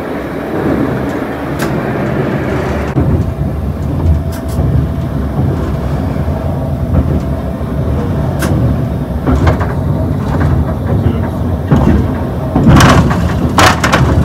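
Metro train running on the line, heard from the driver's cab. There is a steady low rumble of wheels on rail, with occasional clicks and a few sharper clatters near the end.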